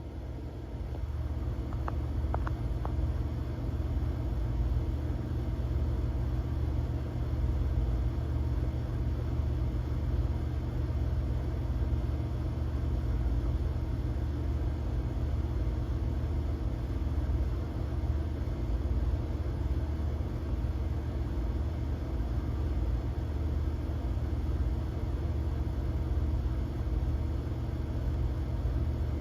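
Deep, steady rumble of a grocery store shaking in a magnitude 7.0 earthquake, heard through a surveillance camera's microphone. It swells about a second in and holds, and a few faint high tones ring briefly about two seconds in.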